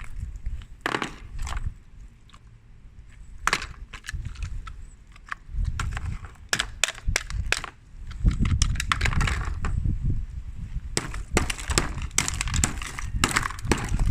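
Repeated crunching and cracking: many sharp clicks and snaps over a low rumble, growing denser and louder about eight seconds in.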